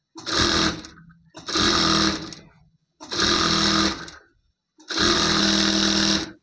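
Electric sewing machine stitching a seam in four short runs, starting and stopping between each as the fabric is guided under the needle; the last run is the longest.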